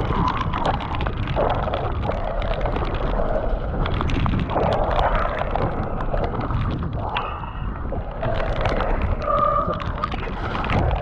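Wind buffeting the ride camera's microphone during a downhill mountain-bike descent, with the bike rattling and knocking over rough, wet trail. There are a few brief squeaks about seven and nine seconds in.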